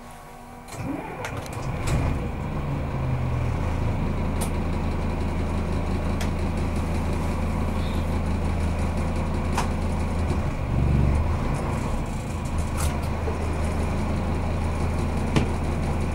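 Diesel railcar engine running while the train stands still. It comes up about a second in, briefly rises in pitch, then settles into a steady low hum, with a few sharp clicks scattered through it.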